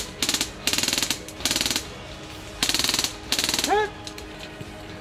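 Airsoft guns firing on full auto in five short bursts of rapid, evenly spaced shots, the last two close together near the end.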